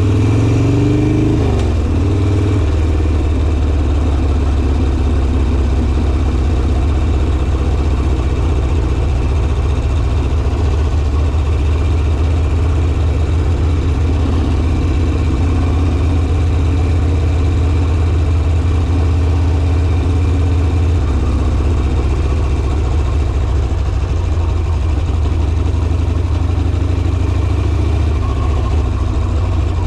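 Harley-Davidson Sportster's V-twin engine running steadily as the bike rides on. Its pitch briefly rises and falls in the first couple of seconds, and its note changes slightly about two-thirds of the way through.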